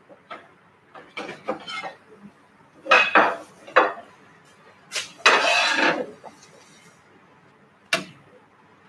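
Stainless-steel pans and kitchen utensils being handled while setting up to strain the second dashi: a run of clinks and knocks, one longer clattering noise about five seconds in, and a single sharp clink near the end.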